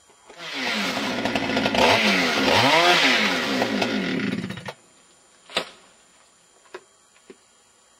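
Chainsaw revving up and down as it cuts a small window into a decayed standing snag, the pocket that will hold a blasting charge. It stops abruptly just under five seconds in and is followed by one sharp knock and a couple of faint ticks.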